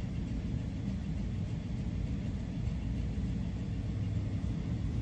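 Steady low rumble of a large hall's background noise, even throughout with no distinct events.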